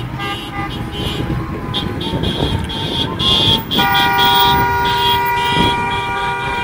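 Many car horns honking in traffic, short toots overlapping one another. About four seconds in, one horn is held down in a long unbroken blast. This is celebratory honking by a crowd of drivers.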